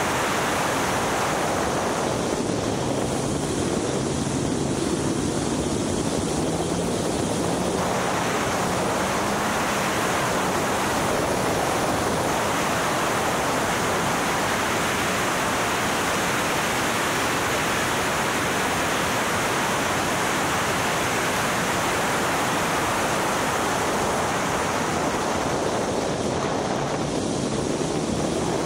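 Heavy wind rush over the microphone of an open track car at speed, with the R300's engine note faint underneath. The engine pitch climbs twice as the car accelerates, once a couple of seconds in and again near the end.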